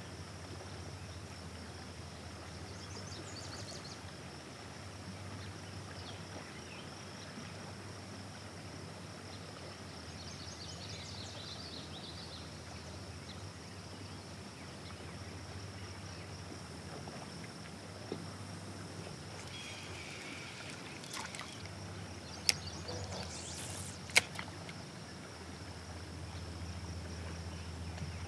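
Faint outdoor ambience: a steady low hum and hiss, with a few faint high chirps early and midway, and two sharp clicks about two seconds apart near the end.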